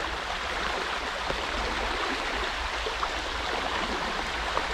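River water running steadily: an even rush of current, with a couple of faint clicks.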